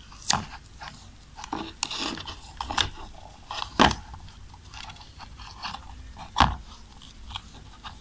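Insulating tape being wrapped by hand around a soldered wire joint at a charger's cable junction: irregular crinkly crackles and handling noises, with sharp clicks about a third of a second in, just before four seconds and about six and a half seconds in.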